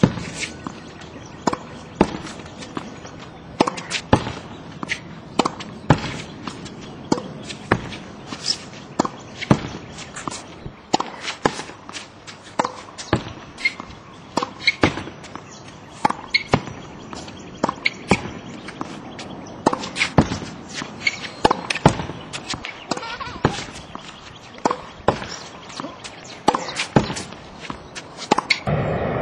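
Tennis ball rallied against a practice wall: sharp pops of the racket striking the ball, the ball smacking the wall and bouncing on the hard court, with a strong hit about once a second and softer impacts between.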